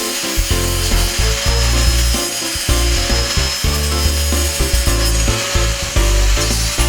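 Angle grinder with a rasp saw blade cutting, a rough grinding and rasping sound, heard over background music with a steady, changing bass line.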